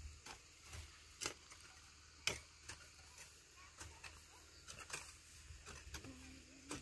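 Faint, irregular clicks and scrapes of hand hoes striking and cutting into dry terrace soil, about a dozen strokes with the sharpest about two seconds in.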